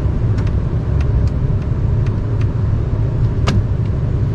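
Steady low rumble with a few short, light clicks and taps, the sharpest about three and a half seconds in.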